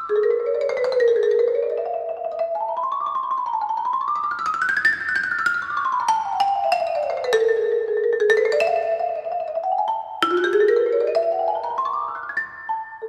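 Background music: a quick, bright melody running up and down in stepwise runs, with a fresh upward run starting on a sharp accent near the end.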